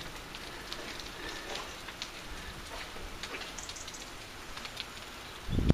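Light rain pattering, with scattered drops ticking. Near the end there is one short, loud, low thump.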